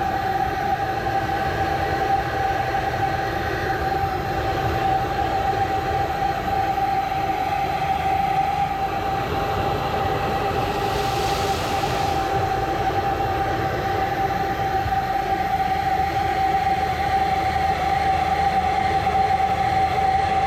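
Pressure-washing rig running steadily, with a constant whine from the machine, while it sprays sodium hypochlorite solution onto pool-cage screens. The spray hiss briefly gets louder about eleven seconds in.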